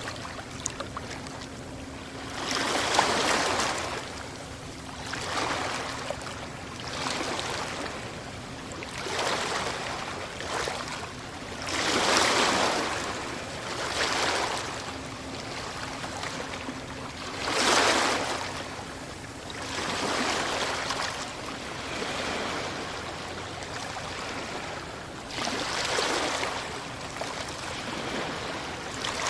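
Small waves breaking on a shore, a swell of rushing surf every two to three seconds over a steady wash of water, with the biggest breaks about three, twelve and eighteen seconds in.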